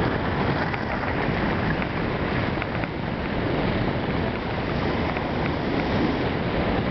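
Steady wind noise buffeting the microphone as it moves down a groomed ski slope, over a constant hiss of sliding on packed snow.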